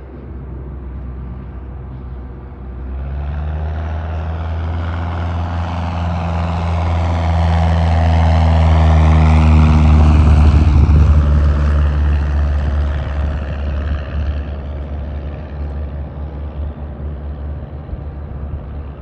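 Propeller airplane passing close by: its engine-and-propeller drone builds from about three seconds in, is loudest around ten seconds, then fades away.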